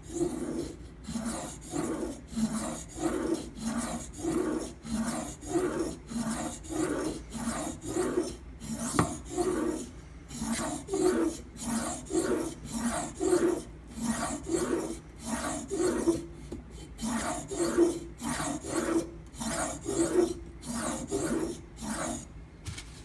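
A steel steak-knife edge held in a guided sharpening clamp, stroked back and forth on a whetstone: a steady run of gritty grinding rasps about two a second. The strokes are blending and cleaning up the bevel after a burr has been raised.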